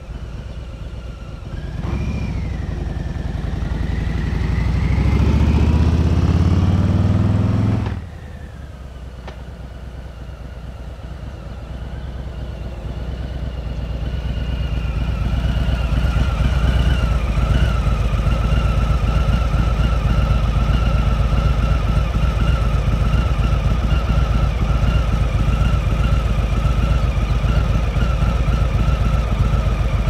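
Harley-Davidson V-twin motorcycle engine accelerating, its pitch rising for several seconds before cutting off suddenly. It is then heard idling steadily, growing louder for a few seconds and holding.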